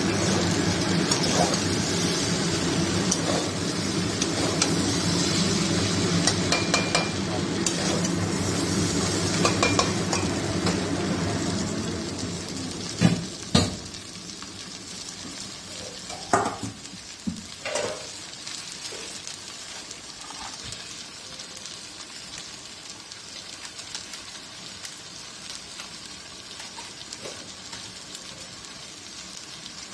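Chicken chow mein noodles sizzling in a metal wok as they are stir-fried with a metal spatula. A steady hum under the sizzle for the first twelve seconds or so falls away, and a few sharp clanks of the spatula against the pan follow, leaving quieter sizzling.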